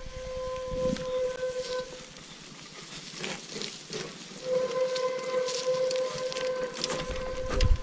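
Disc brakes of an off-road wheelchair squealing in a steady high whistle, once until about two seconds in and again from about halfway to near the end, over the rattle of the wheels on a stony trail.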